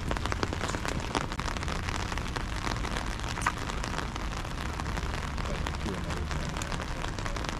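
Steady rain falling, with many small drop clicks over an even hiss and a low rumble underneath.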